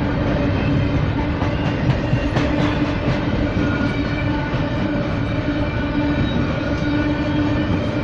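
Freight train rolling past, its wheels clicking over rail joints, over a steady droning tone and low rumble.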